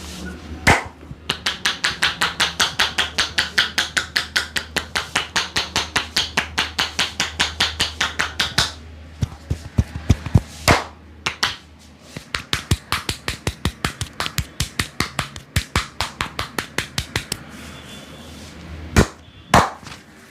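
Hands striking the body in rapid percussive massage strokes, about four sharp slaps a second in two long runs, with a few single harder slaps between and near the end.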